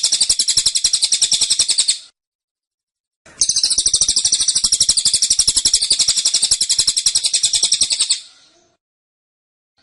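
Cililin songbird singing its 'tembakan' song: a dense, rapid run of high, evenly repeated notes. The run stops about two seconds in, starts again after about a second's pause and runs for about five seconds before trailing off.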